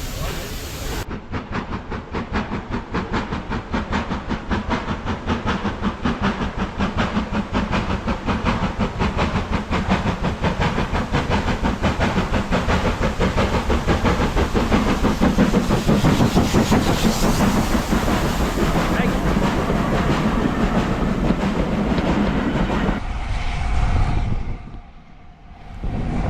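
A train passing at speed, with a fast, even rhythmic beat that builds to its loudest about two-thirds of the way through. Near the end the sound changes suddenly and drops away briefly.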